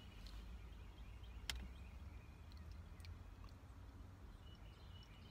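Near-quiet car interior with a steady low rumble underneath, broken by one sharp click about one and a half seconds in and a fainter tick near three seconds.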